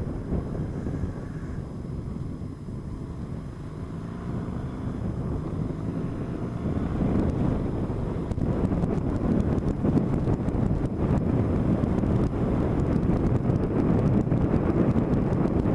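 Motorcycle riding along a road: engine running under heavy wind buffeting on a bike-mounted camera's microphone, growing louder about halfway through.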